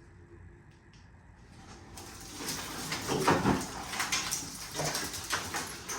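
Handling noise from a car interior being taken apart: scraping, rustling and knocking of parts, with scattered sharp clicks, starting about two seconds in after a quiet opening.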